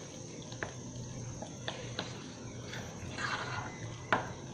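A metal spoon stirring thin flour batter in a glass bowl: soft wet sloshing with scattered light clinks of the spoon against the glass, the loudest about four seconds in.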